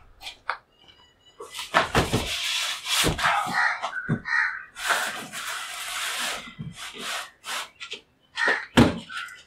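Large cardboard box thumped down and handled on a wooden table, with its packing tape pulled and torn off in long rasping strips.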